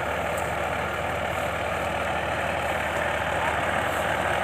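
Yanmar YH850 combine harvester's diesel engine idling steadily on standby.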